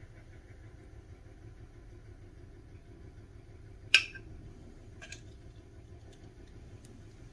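A glass bottle clinks once, sharp and brief, against a stainless-steel jigger about four seconds in as syrup is poured, with a fainter tick a second later, over a low steady hum.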